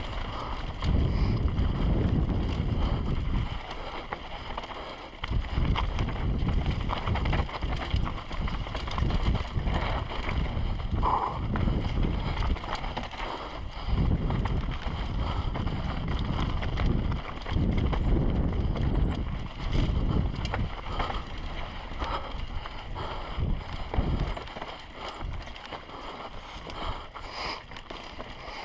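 Wind rushing over the microphone of a mountain bike on a fast descent, mixed with tyres and bike rattling over dirt and rocks; the rush rises and falls unevenly with speed.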